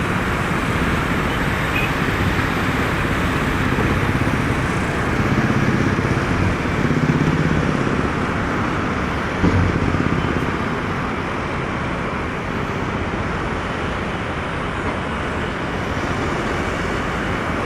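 A steady, loud rush of engine noise, with a single thump about halfway through.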